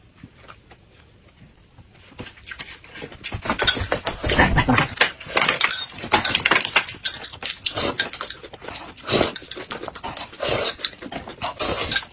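Close-miked eating sounds: wet chewing and lip-smacking with clicks of chopsticks on plates. They are faint for the first two seconds and grow loud and busy from about three seconds in.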